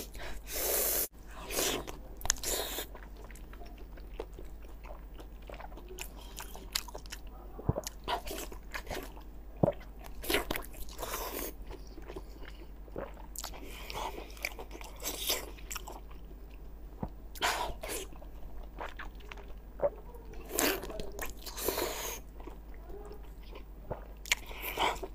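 Close-miked biting and chewing of Chinese pork blood sausage, with irregular short clicks and smacks from the mouth.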